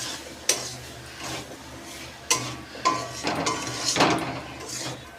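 A spatula stirring and scraping boiled chickpeas through thick masala in a cooking pan, knocking against the pan a handful of times, as the chickpeas are stir-fried into the spices.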